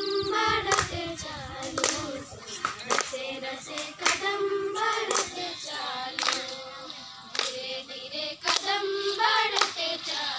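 A group of girls singing a song together, with hand claps keeping time about once a second.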